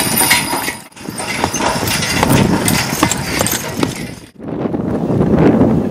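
Belgian draft horse's hooves clip-clopping as it trots pulling a cart, with many short strikes over a dense background noise. The sound drops out briefly about a second in and again just past four seconds.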